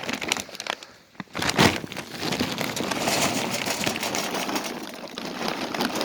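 Charcoal poured into an ugly drum smoker's metal charcoal basket: one loud clatter about a second and a half in, then a continuous rattling pour of coals.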